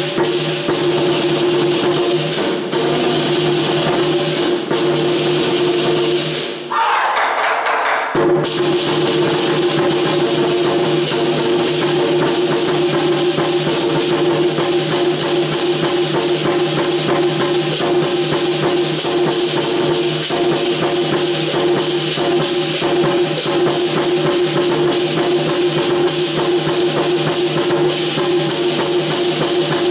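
Lion dance percussion: drum, cymbals and gong beating a fast, steady rhythm, with a short break about seven seconds in.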